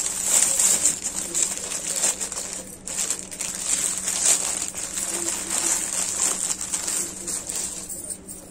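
Packaging rustling and crinkling as a boxed bangle set is opened and unwrapped, with small clinks and taps throughout.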